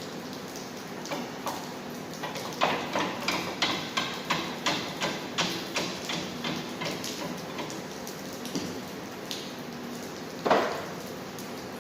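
Hand-tool work on a Jeep axle during teardown: a run of light metallic clicks or taps, about two to three a second, then one louder knock near the end.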